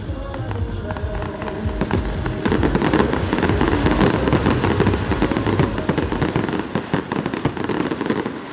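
Fireworks going off in a dense, continuous crackle that swells louder about two and a half seconds in.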